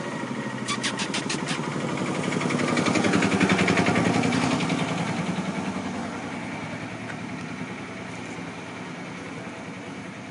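A motor vehicle's engine running as it passes close by, growing louder to a peak about three to four seconds in and then fading away.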